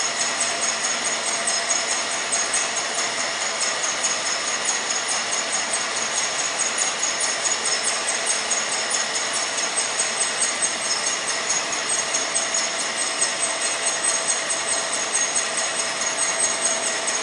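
Metal coil slitting line running, a sheet being cut into narrow strips by the rotary slitter knives: a steady mechanical noise with several high-pitched whining tones and a rapid flutter.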